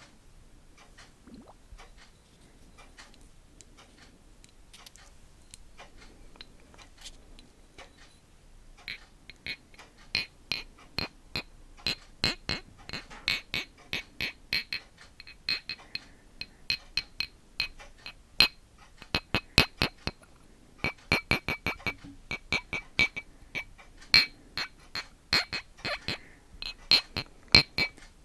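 Quick tapping on a hard object that rings briefly with each tap, several taps a second, as an ASMR trigger. Only faint scattered clicks come first; the loud tapping starts about nine seconds in.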